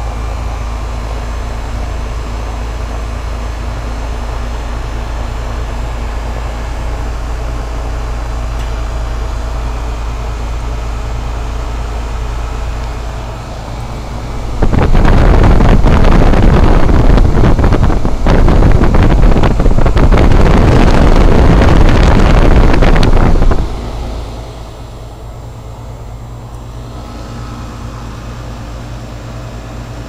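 2004 Goodman 10 SEER heat pump outdoor unit running steadily, with its coil no longer frozen after a defrost cycle. About halfway through, a much louder rushing wind noise on the microphone lasts about nine seconds, then drops back to a quieter steady hum.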